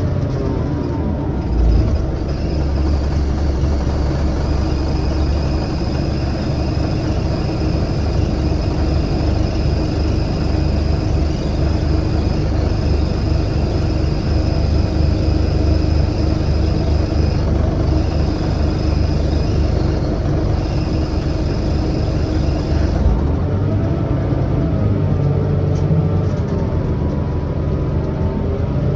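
A 2003 Scania L94UB city bus heard from inside the passenger saloon while driving: steady engine drone and road rumble, with a thin high whine through most of it. About two-thirds of the way through, the deep drone eases and the engine note starts to rise and fall.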